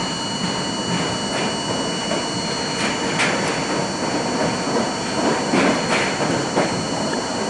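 R42 subway car running on elevated track, heard from inside the car: a steady rumble and rattle with the wheels clicking over rail joints several times.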